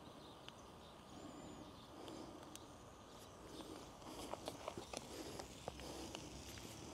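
Quiet outdoor ambience with a few faint, high bird chirps. From about four seconds in comes a run of light clicks and rustles.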